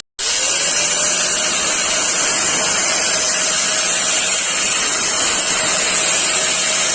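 Electric drill fitted with a grinder attachment running, a loud, steady grinding hiss over a faint motor whine that rises as it spins up.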